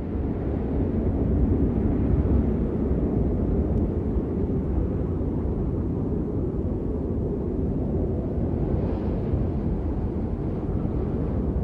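Low, steady rumbling drone from the piece's sound design, even in level throughout.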